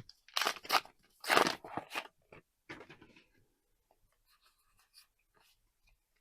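Trading cards and their plastic or foil packaging handled close to the microphone: several loud crinkling, rustling strokes in the first three seconds, then only faint rustles.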